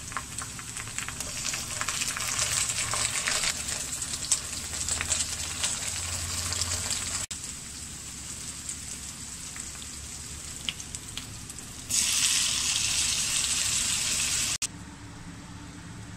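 Food sizzling and crackling as it fries in a pan. The sound breaks off abruptly about seven seconds in and again near the end, with a louder, denser hiss just before the second break.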